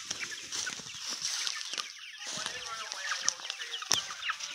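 A flock of young free-range chickens, 12 to 14 weeks old, making many short high-pitched calls while foraging in dry leaf litter, with a few sharp crunches of leaves.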